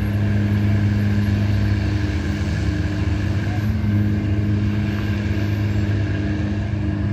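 Steady low hum of an idling vehicle engine, with road traffic.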